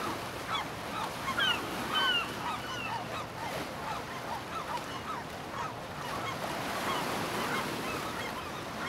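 A flock of birds calling: many short, overlapping calls that rise and fall in pitch, over a steady hiss.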